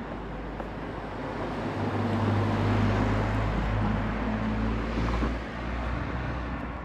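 A motor vehicle driving past on the street: engine hum and tyre noise swell about two seconds in and fade after about five seconds.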